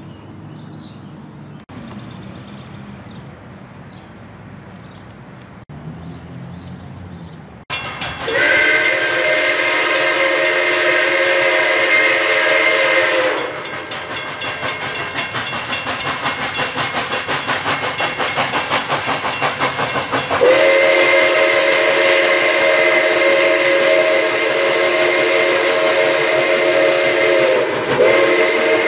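A locomotive's multi-note chime sounds a loud, steady chord of several tones beginning about eight seconds in and held about five seconds. A stretch of evenly pulsing noise follows, then the chord again for about seven seconds, and a third blast starts near the end. The first eight seconds hold only quieter background sound.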